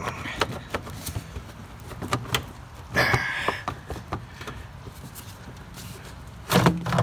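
Plastic hose and connector in a car's engine bay being unclipped and pulled loose by hand: a run of small clicks and knocks, with a short scraping rustle about three seconds in.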